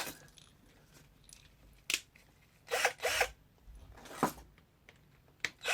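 Screws being fitted and driven in to mount a car door's window regulator: a sharp click, a few short bursts of tool noise about a second apart, and another click near the end.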